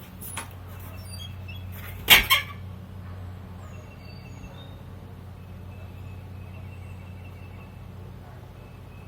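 A steady low mechanical hum, like an idling engine, with a sharp double knock about two seconds in and faint scattered bird chirps.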